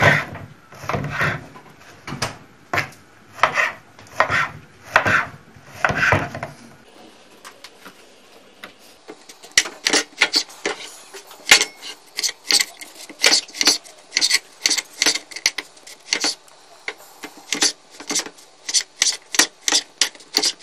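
Kitchen knife sawing through slices of stale bread and cutting them into cubes on a plastic cutting board, a rasping stroke about every three-quarters of a second. After a short lull about seven seconds in, quicker, lighter strokes follow, two or three a second.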